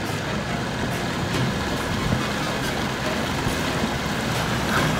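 Motorboat engine running steadily as a white cabin cruiser passes close by at low speed.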